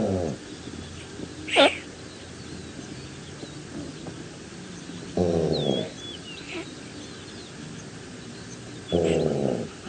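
Antelope calls: three short, low, hoarse calls, each under a second, spaced several seconds apart. About a second and a half in comes one sharp squeal that rises steeply in pitch, the loudest sound, and faint high bird chirps run underneath.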